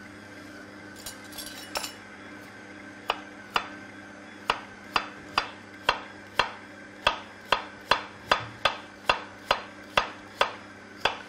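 Chef's knife slicing a carrot on a cutting board: a steady run of sharp knocks on the board, about two a second, starting about three seconds in. A faint steady hum sits underneath.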